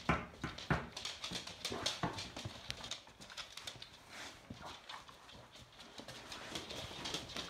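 Dogs' claws clicking and tapping on a wooden floor as several dogs walk about, in an irregular patter of taps.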